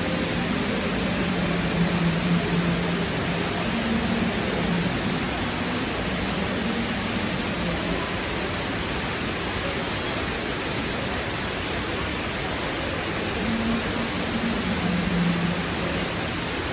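Dubai Mall's indoor waterfall: water falling steadily as an even rushing hiss, with a low hum that comes and goes beneath it.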